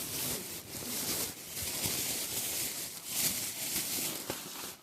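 Clothing and packaging being handled: irregular rustling and crinkling that swells and fades.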